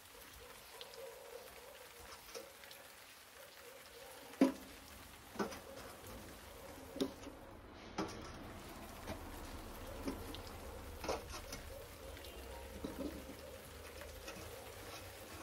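Lumps of charcoal being picked up with steel tongs and dropped into a foil-lined tray, giving sharp clinks and knocks about once a second over a faint hiss. The loudest knock comes about four seconds in.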